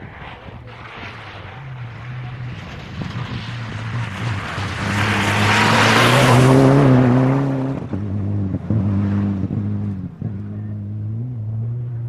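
Rally car approaching on a gravel stage at speed, its engine rising to a peak as it passes close about six seconds in, tyres spraying and crunching gravel. As it pulls away the engine note breaks briefly a few times, then keeps running more quietly.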